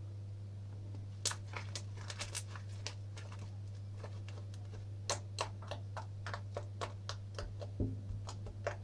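Homemade slime being squeezed and pressed by hand, giving irregular sharp clicks and pops from about a second in, with a dull thump near the end, over a steady low hum.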